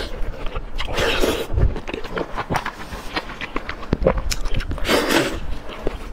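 Close-miked eating sounds: wet biting, slurping and chewing of chopped-chili oysters on skewers, with many short mouth smacks and clicks and a few louder slurping hisses about a second in and around four to five seconds in.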